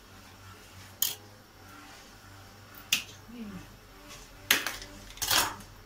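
Sharp plastic clicks and snaps as the green cap of a mayonnaise squeeze bottle is worked open: four in all, the last two loudest and close together.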